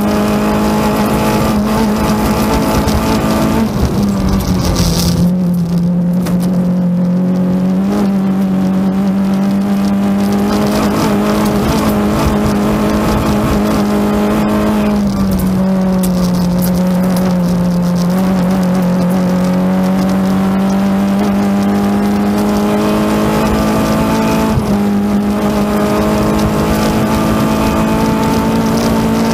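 Renault Clio 16V rally car's 16-valve four-cylinder engine heard from inside the cabin, running hard at high revs on a stage. Its note dips in pitch briefly three times, about four seconds in, in the middle and near the end, then pulls up again.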